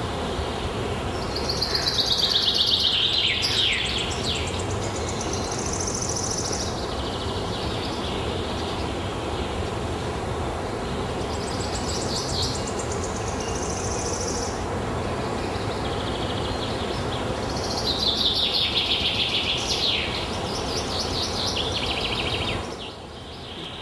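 A songbird singing a short phrase that falls in pitch, four times, about every five seconds, over steady background noise.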